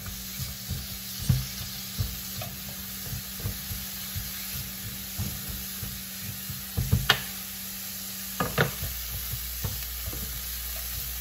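Chopped onion sizzling in hot avocado oil in a stainless steel pan, stirred with a plastic spoon that knocks and scrapes against the pan now and then, most sharply about a second in and again around seven and eight seconds in.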